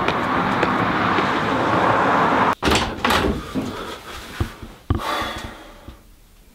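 A steady outdoor rush of noise, then a sudden cut to a door being pushed open in a small room, with a few knocks and clicks from the door and its handle.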